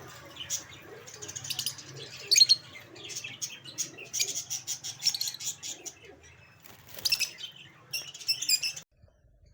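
A colony of parrots chirping and chattering in many quick, high calls, over a steady low hum. It all cuts off suddenly near the end.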